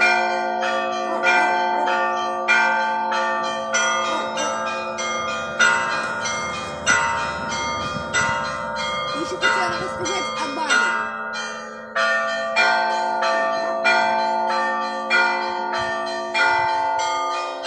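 Church bells ringing: quick strikes of small bells over the steady hum of larger bells, with a heavier stroke roughly every second or so.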